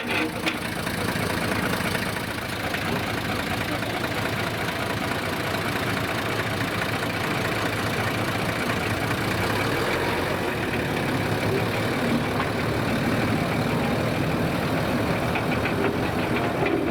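Forest railway locomotive's engine running steadily, a continuous mechanical drone with a fast fine rhythm.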